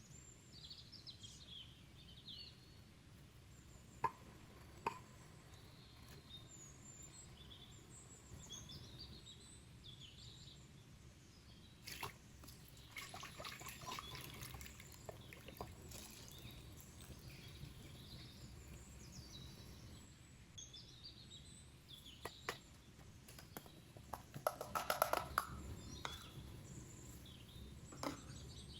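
Faint birds chirping on and off throughout, over a low steady hum, with a few scattered clicks and knocks and a short clatter about 25 seconds in.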